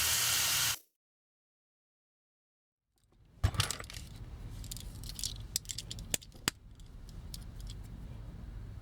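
Drill with a 2.5 mm bit running briefly as it drills out a toy's rivet, then cutting off abruptly. After about two seconds of dead silence come scattered sharp clicks and light rattling of small metal and plastic toy parts being handled.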